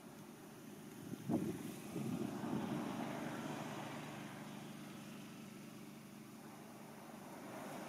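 Ocean surf washing on a sandy beach, swelling a couple of seconds in and again near the end, with a short knock about a second in.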